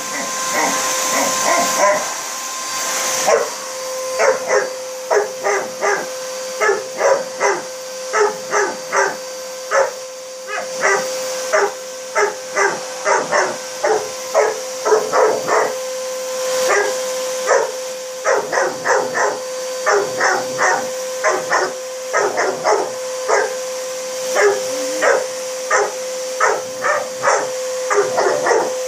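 Cane Corso puppy barking again and again, in quick runs of short barks, at a running vacuum cleaner. The cleaner's motor gives a steady whine under the barking.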